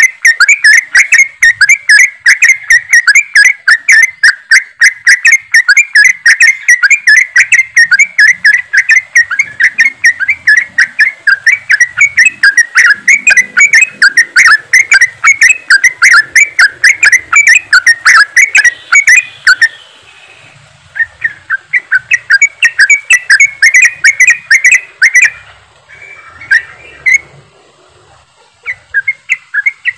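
A group of yellow-vented bulbuls (trucukan) calling together in a dense, fast stream of sharp chattering notes. The notes break off briefly about two-thirds of the way in, resume, then thin out to scattered calls near the end.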